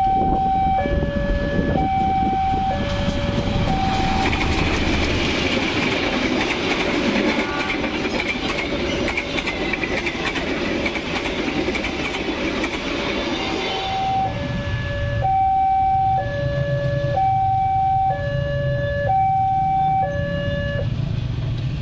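Railroad crossing warning alarm sounding a two-tone signal, alternating a higher and a lower tone, each under a second. A passenger train passes from about 4 to 14 seconds in, its rumble and rapid clicking of wheels over the rail joints drowning out the alarm, which then carries on.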